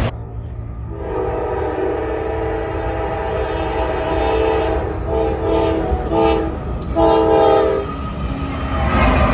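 Locomotive multi-chime air horn sounding a chord: one long blast of about five seconds, then two short blasts, over the low rumble of the train.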